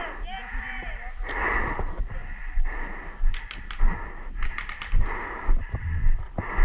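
Heavy breathing behind a paintball mask, with quick strings of sharp paintball marker shots from about halfway through (three, then four or five in rapid succession) and dull low thumps.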